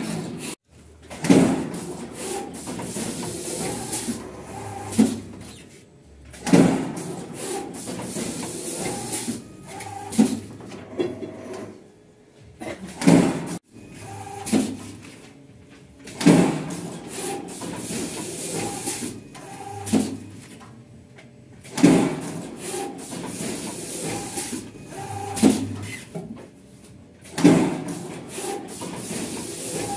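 WIRESTAR PB-580S automatic calendar punching and wire-binding machine running through its work cycles. A loud mechanical knock comes about every three to four seconds, with clattering and a short low motor hum between knocks.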